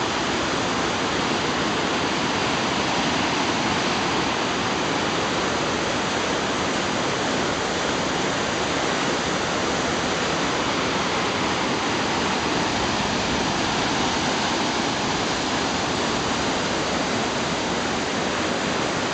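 Whitewater of a mountain river rushing through a narrow rock canyon: a steady, unbroken rush of water.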